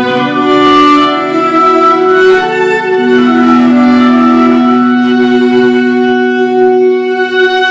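Small church ensemble playing a slow piece, with a violin to the fore alongside clarinet and handbells, in long held notes.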